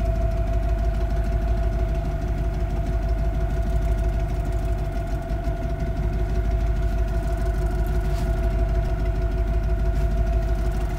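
Fishing boat's engine running steadily: a low rumble with a steady hum above it.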